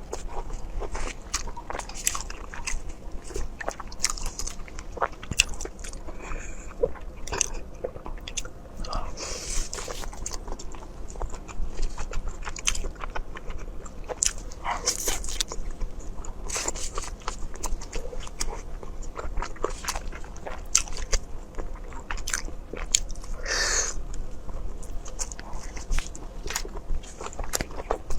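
Close-up eating sounds: chewing, biting and crunching, with many short wet clicks and crackles and a few longer slurp-like smears, about 9 s, 15 s and 24 s in.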